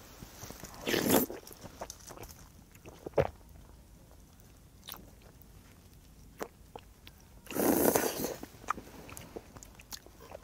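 Ramen noodles in spicy tteokbokki broth being slurped twice, about a second in and again about eight seconds in, with chewing and small mouth clicks between.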